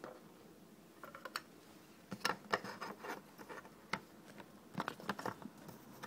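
Irregular small clicks and scrapes of hand tools working on an eGo-type e-cigarette battery as it is taken apart, in short clusters with pauses between.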